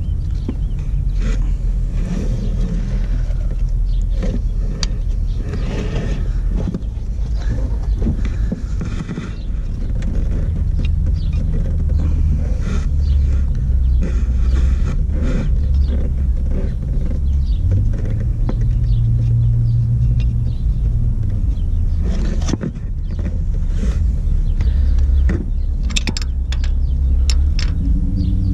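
Steady low rumble with scattered light clicks and taps, denser near the end, as a wrench and hands work at the camshaft sprocket and timing belt.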